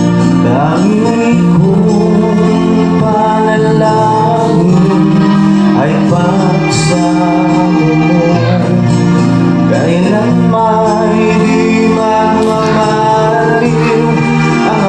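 Music: a slow song with singing over sustained instrumental backing.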